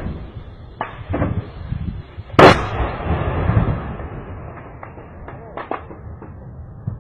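Weapons fire across a hilly valley: one loud blast about two and a half seconds in that echoes and rumbles away over a second or more, among fainter scattered cracks and thuds.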